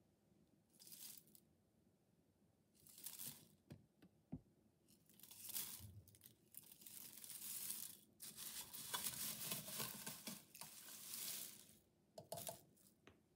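A perforated metal spoon stirring and lifting crispy fried onions in a stainless steel perforated colander, giving a dry, crunchy rustling and crackling in several short spells, busiest in the second half. The dry crunch shows the onions are fried crisp.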